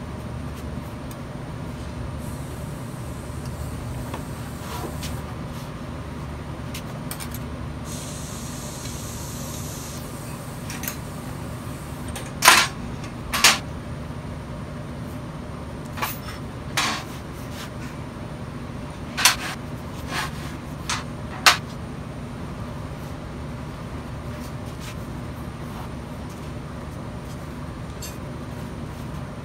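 A steady machine hum under a brief hiss about eight seconds in, then a handful of sharp metallic clicks and clinks as a TIG torch and tools are handled at a steel welding table.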